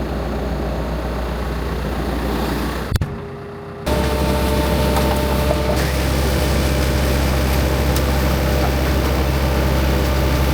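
Farm machine's engine running steadily, heard from inside the cab, a constant low drone with a few steady whining tones. About three seconds in there is a click, and the sound drops for about a second before the drone returns.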